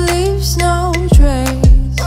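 Background pop/R&B song: a sung vocal melody over a steady bass line, with two deep kick-drum hits about half a second apart near the end.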